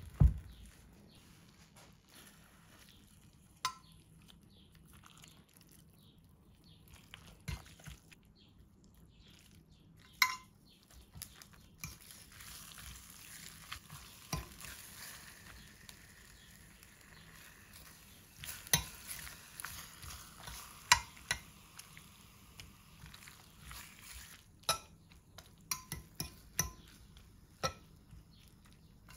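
Kitchen sounds of food being prepared: scattered sharp knocks and clinks of utensils against pans and dishes, the loudest right at the start, with a stretch of soft hissing in the middle.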